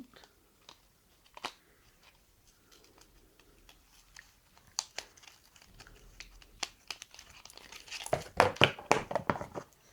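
Product packaging handled and crinkled by hand with a few light clicks, then a louder run of crinkling and tearing near the end as the wrapping is pulled open.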